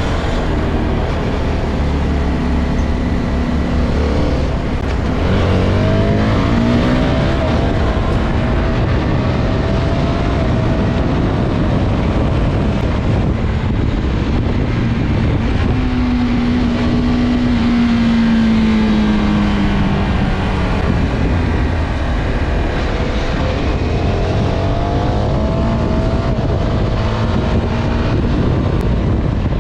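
CFMOTO 250SR single-cylinder motorcycle engine under way over steady wind and road noise. The revs climb about five seconds in and again near the end, and fall away in the middle.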